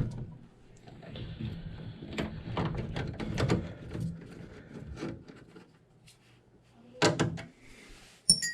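Metal furnace parts being worked loose and handled by hand: a run of clicks and scraping, a louder clatter about seven seconds in, and a sharp, ringing metallic clink at the very end.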